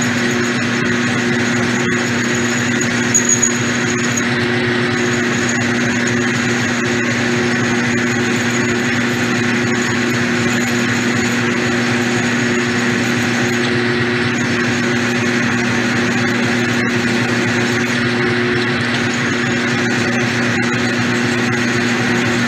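Myford 254 gear-head lathe running steadily while a twist drill in the tailstock bores into a rusted steel axle shaft turning in the chuck: a constant mechanical hum with a faint high whine that comes and goes. A brief sharper squeak about three seconds in.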